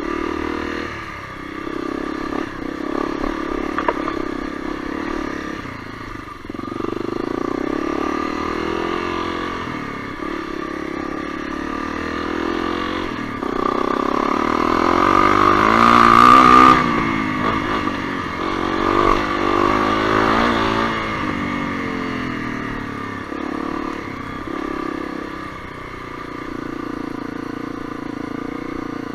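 Honda CRF250L's single-cylinder four-stroke engine running on a trail ride, its revs rising and falling with the throttle. It is loudest about halfway through, on a burst of throttle.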